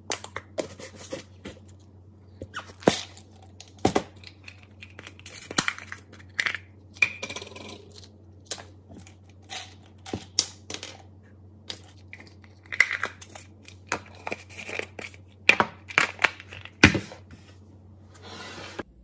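Plastic supplement containers handled on a countertop: lids clicking, bottles knocked and set down, and small hard pieces clattering as they are shaken out, in irregular sharp clicks and short rattles. A steady low hum runs underneath.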